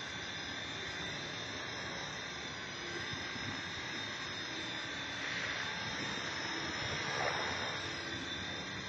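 450-size 3D RC helicopter hovering: a steady whine from its electric motor and spinning rotor blades, holding a few fixed tones and growing a little louder for a couple of seconds past the middle.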